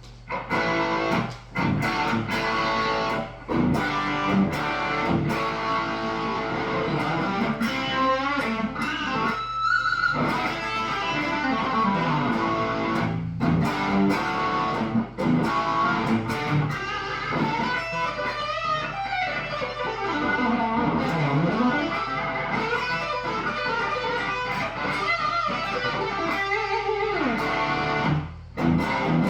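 Electric guitar played through a Marshall Origin 20 valve combo amp, driven by an Ibanez Tube Screamer overdrive pedal: continuous lead and chord playing with string bends and slides, broken by a few brief pauses. A steady low amp hum sits under it.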